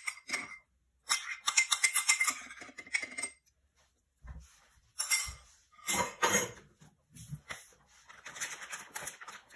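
Metal spoon scraping and clinking against a metal cake pan and a plastic bag while spooning thick blackberry filling, in several short bursts with pauses between.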